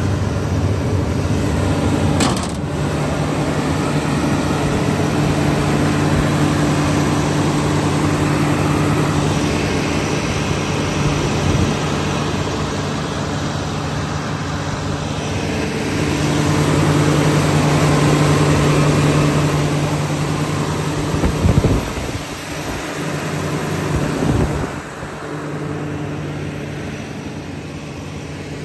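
Komatsu PC360-10 excavator's diesel engine running steadily, a low even hum. A sharp knock about two seconds in, and a few low thumps a few seconds before the end.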